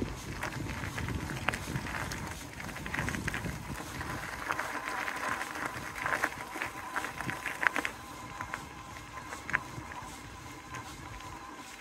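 Footsteps crunching on a gravel path, with low wind rumble on the microphone through the first few seconds.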